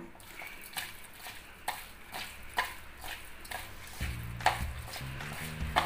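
A bare hand squishing and rubbing raw prawn heads with spice powders in a ceramic plate, a soft stroke about twice a second. A low steady hum joins about four seconds in.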